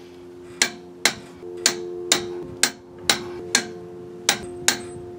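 Ratchet head of a torque wrench on a 21 mm socket clicking about twice a second, each click sharp and ringing briefly, as a wheel lug nut is run down.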